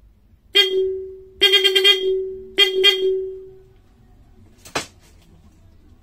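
Electric car horn giving three short blasts on a single steady pitch, each fading away over about a second. A sharp click follows near the end.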